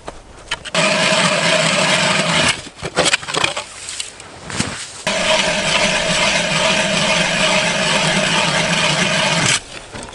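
Powered ice auger drilling a hole through river ice: the motor runs steadily under load for about two seconds, stops, then runs again for about four and a half seconds. Short knocks and scrapes fall in the gap between the two runs.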